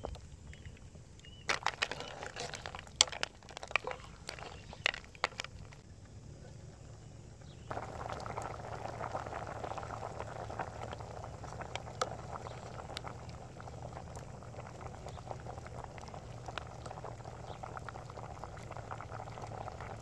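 A pot of soup boiling hard over a wood fire, bubbling steadily. A run of sharp pops and crackles comes in the first few seconds, and the bubbling turns louder and denser about eight seconds in.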